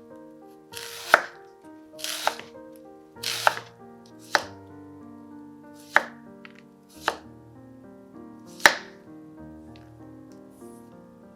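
Knife cutting food on a cutting board: about seven cuts, roughly a second apart, each a short slicing hiss ending in a sharp knock on the board. Background music plays throughout.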